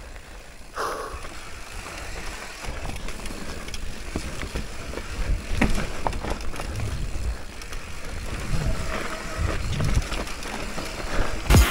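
Downhill mountain bike riding over a rough trail: a rumble of tyres on dirt and wind on the microphone, with scattered clicks and knocks from the bike.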